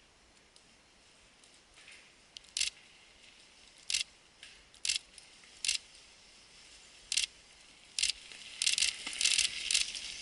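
Mountain bike rear hub freewheel buzzing in short bursts as the rider coasts between pedal strokes. The bursts come every second or so, then crowd together and grow louder near the end as the bike comes close.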